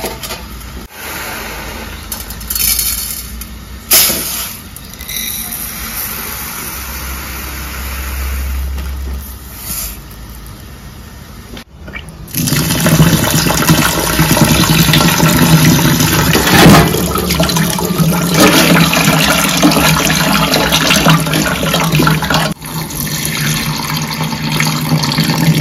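Rice being washed in a steel bowl in a steel kitchen sink: first dry rice and a steel measuring cup clink and rattle in the bowl, then, about twelve seconds in, a tap runs loudly and steadily into the bowl of rice, and near the end the cloudy rinse water is poured off the rice into the sink.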